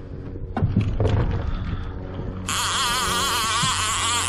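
A fishing reel on a hooked fish gives a loud, high screech with a wavering pitch, starting about two and a half seconds in. A few knocks come in the first second, over a steady low hum.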